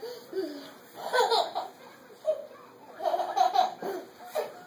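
A baby laughing in four or five short bursts.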